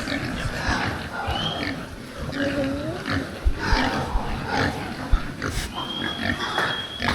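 A group of pigs grunting repeatedly in a pen, with a short squeal about halfway through. A thin steady high tone sounds over them near the end.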